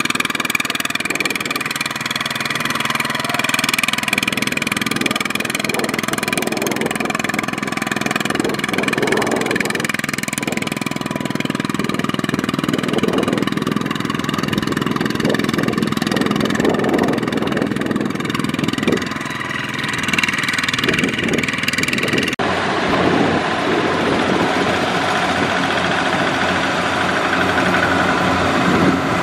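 Single-cylinder diesel engine of a two-wheel walking tractor running steadily under load while it hauls a loaded trailer through sticky mud. The tone changes abruptly about two-thirds of the way through.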